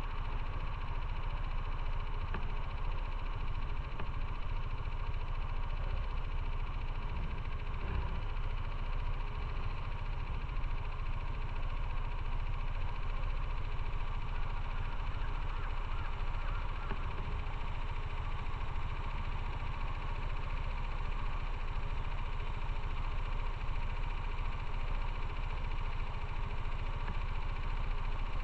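Motorcycle running steadily while being ridden, with a constant low rumble and no change in engine speed.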